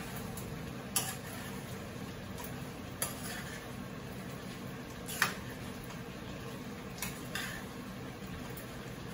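Metal utensil clinking and scraping against a frying pan while stirring meat and vegetables, about five sharp clinks a second or two apart, the loudest about five seconds in, over a steady low hum.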